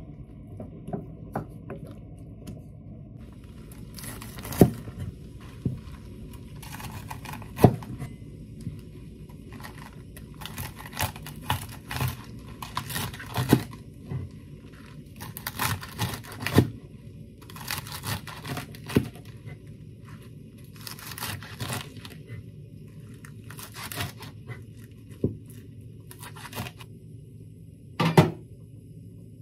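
Kitchen knife cutting through crisp cabbage stalks on a cutting board, with the leaves crunching and tearing apart and sharp knocks of the blade on the board. A single loud knock comes near the end.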